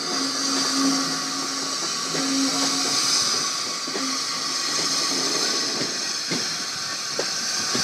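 Andrew Barclay 0-4-0 saddle tank steam locomotive running past with a coach, with a steady hiss of steam. Its wheels click over rail joints several times near the end.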